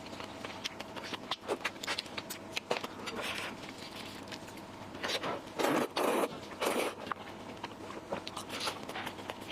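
Close-miked eating sounds: wet chewing and mouth clicks of fish head and glass noodles, with a few louder, longer bursts about five to seven seconds in.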